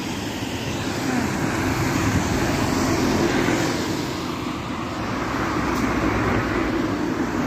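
Road traffic passing close by, a steady rushing noise of cars that slowly swells and eases.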